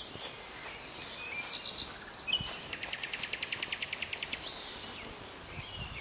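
Nightingale singing: a few short whistled notes, then a rapid, even run of about ten notes a second lasting nearly two seconds, over a steady background hiss.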